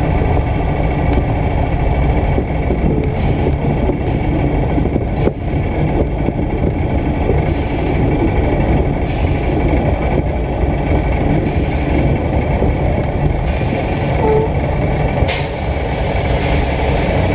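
Light aircraft's piston engine and propeller running with a steady drone, heard from inside the cabin.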